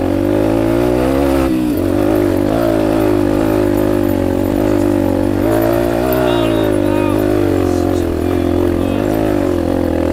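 Yamaha dirt bike engine running under load on a trail climb, its pitch rising and falling with the throttle.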